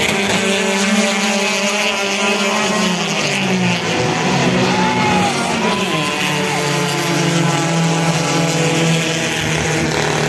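Race car engines running at speed on the circuit, their pitch rising and falling.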